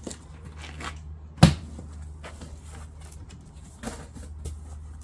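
Large cardboard box being opened by hand: rustling and scraping of the cardboard flaps, with one sharp knock about one and a half seconds in and a softer one near four seconds, over a steady low hum.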